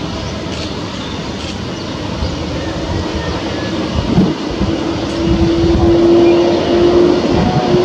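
Airbus A330-200 jet engines running as the airliner moves slowly down the runway: a steady jet noise that grows louder, with a steady hum coming in about five seconds in.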